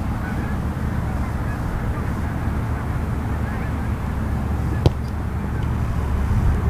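A football kicked off a tee: a single sharp smack of the foot on the ball about five seconds in, over steady wind rumble on the microphone.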